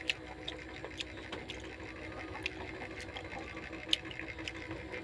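Quiet eating sounds: small scattered clicks and taps of fingers picking food off a plate, with chewing, over a steady low mechanical hum.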